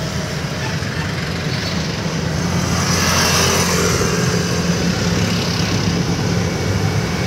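Small passenger vehicle's engine running steadily while driving, heard from inside, with road and wind noise; it grows a little louder over the first few seconds as it picks up speed.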